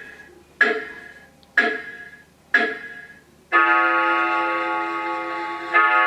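Seasonal Visions animated grandfather clock decoration playing sounds through its speaker: struck clock-chime tones about once a second, each ringing and dying away, three of them. About three and a half seconds in, a sustained organ-like chord takes over, changing to a new chord near the end.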